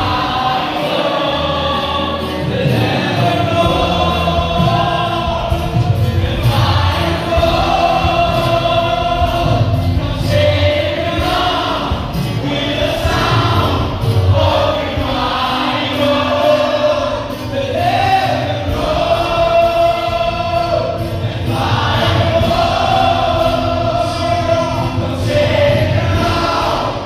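A group of voices singing a gospel worship song with instrumental accompaniment, in long sung phrases a few seconds each.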